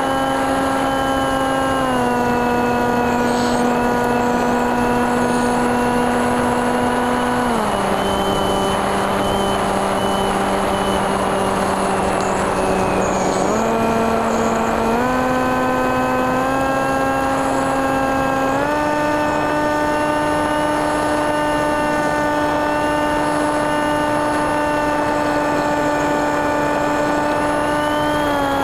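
Electric motor and 8x6 propeller of a TekSumo FPV plane heard from its onboard camera in flight: a steady whine that steps down in pitch about a quarter of the way in, with a rush of air while it is low, then steps back up in stages to a higher pitch as the throttle is opened again.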